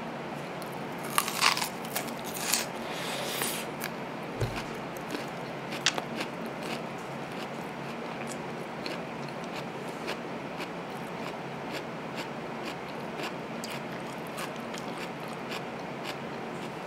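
Crunching bites into a whole raw onion close to the microphone, loudest in the first few seconds, then steady chewing with soft crunches. A dull thump about four and a half seconds in.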